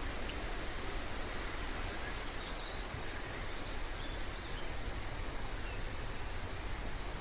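Steady outdoor background noise, an even rushing hiss with a strong low rumble, and a few faint bird chirps about three to four seconds in.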